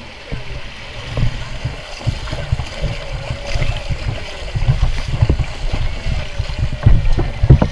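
Water splashing and sloshing as a paddler wades through shallow water dragging a sea kayak by its bow line, with irregular low thumps of water against the hull close to the bow-mounted microphone, busier toward the end.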